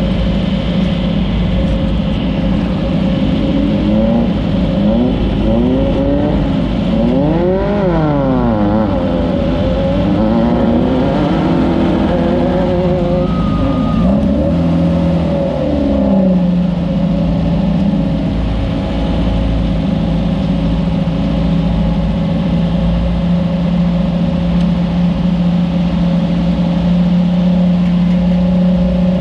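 Class 9 off-road race car's air-cooled Volkswagen engine under way: the revs climb and drop again and again for the first half, then hold one steady high note from about halfway through.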